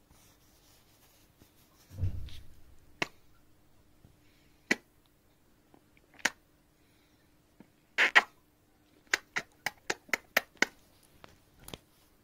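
Kisses on a kitten: a few separate short lip-smacking kiss sounds, then a quick run of about eight in the last three seconds. A dull bump comes about two seconds in.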